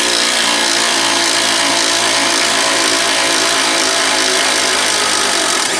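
Cordless impact running continuously, hammering a strut spring compressor's threaded rod to back the compressor off a front strut. A steady, loud run that does not let up.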